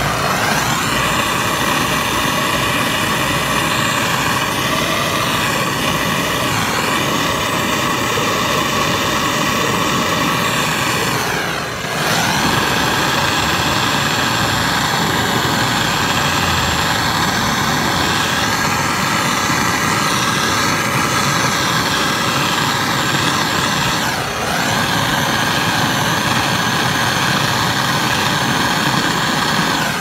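Handheld gas torch burning with a steady hiss carrying a few steady tones, dipping briefly twice and cutting off at the end. Its flame is heating the seized refrigerator compressor's pump block to free the stuck mechanism.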